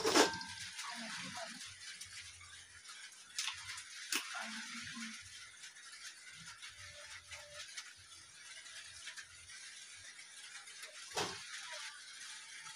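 Kitchen utensils knocking a few times: once at the start, twice a few seconds in, and once near the end. Under them runs a faint steady hiss.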